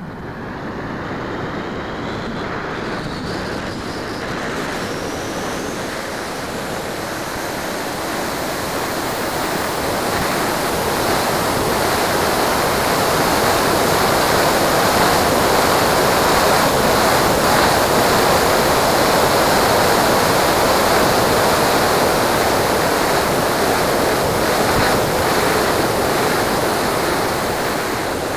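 Airflow rushing over an RC model plane's onboard camera in flight. It grows louder over the first half as the plane noses down into a dive and stays loud, with a faint whine rising in pitch over the first few seconds.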